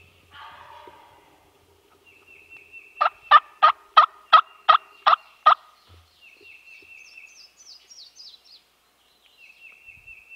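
Turkey yelps: a series of eight loud, evenly spaced yelps at about three a second, beginning about three seconds in. A songbird's short trill repeats several times around them.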